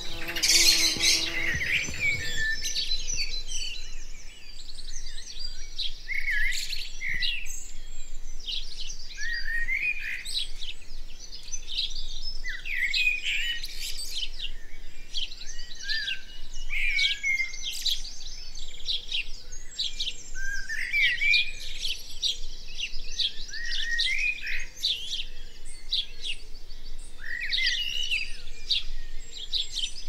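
Garden birdsong: several small birds singing and chirping, a steady stream of short, high, sliding notes and trills.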